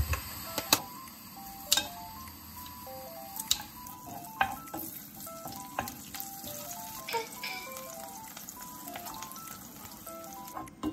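Chopped scallions sizzling in hot cooking oil in a frying pan as scallion oil is made. A spatula stirring them clicks and knocks against the pan now and then.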